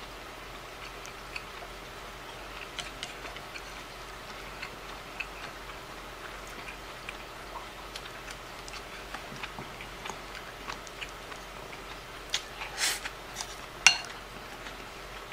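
Chopsticks clicking and scraping against a ceramic rice bowl in light, irregular taps, with a few sharper knocks near the end.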